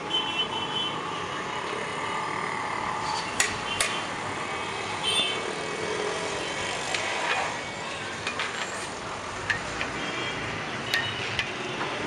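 Rice being tipped into a large aluminium cooking pot and stirred with a long-handled metal skimmer, which clinks against the pot a few times: twice about three and a half seconds in, then several more near the end. Throughout there is a steady rushing noise.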